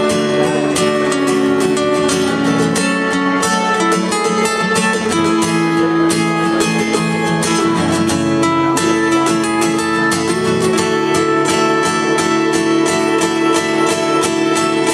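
Acoustic guitar strummed briskly in an instrumental passage of a song, chords changing every few seconds.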